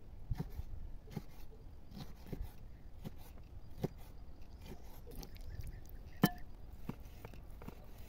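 Large kitchen knife slicing raw calf's liver and sheep-tail fat on a wooden cutting board: faint, irregular soft knocks as the blade comes down on the board, with one sharper click about six seconds in that rings briefly.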